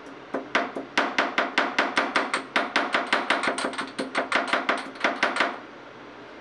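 A fast, even run of sharp metallic knocks, about five a second, lasting about five seconds, with a faint high ring over the strikes.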